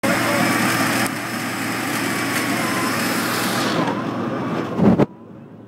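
Off-road vehicle engine running, with the revs rising to a peak just before the sound cuts off suddenly about five seconds in.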